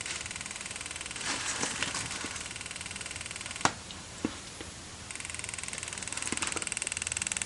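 Pixel TD-381 external flash battery pack, plugged into a Canon 580EX II Speedlite, clicking rapidly and steadily, the fault the pack shows on this flash. The rapid clicking drops away after a sharp click about halfway through, then starts again and grows louder near the end.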